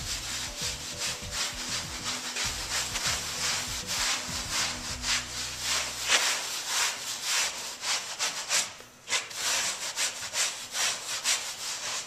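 Damp sponge scrubbed in quick strokes over a wetted, coarse sand-finish clay plaster wall: a steady gritty rubbing with a short break about nine seconds in. This is sponge compression, pressing the clay around the sand to close the surface.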